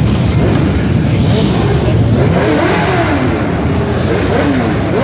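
Motorcycle engines running in slow street traffic, a steady low rumble with revs rising and falling in the second half.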